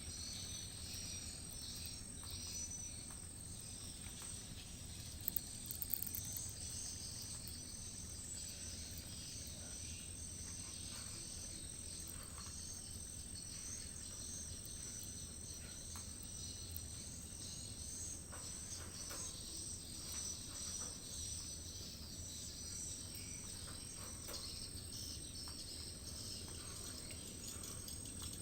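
Outdoor insect chorus: a steady high-pitched drone with repeated chittering chirps just below it, over a low rumble. Two or three short sharp knocks come about five to six seconds in.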